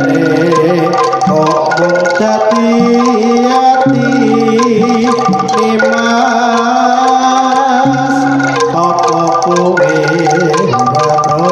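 Javanese jaranan gamelan music played loud through a large outdoor sound system: kendang hand drums keep the beat under metallophone notes and a held, wavering melody line.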